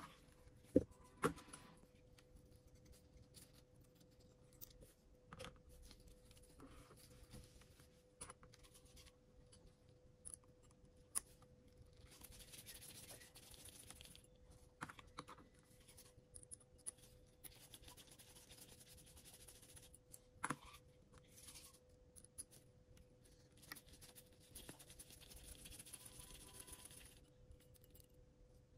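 Faint bench-repair handling sounds from small tools and drone parts during a gimbal repair: scattered light clicks and brief scraping. A few sharper clicks stand out, about a second in and again after twenty seconds. A faint steady hum runs underneath.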